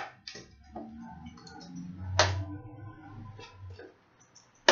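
Clear hard-plastic GoPro retail packaging being handled and pried apart by hand: a scatter of small plastic clicks and taps, with one sharper, louder click about two seconds in.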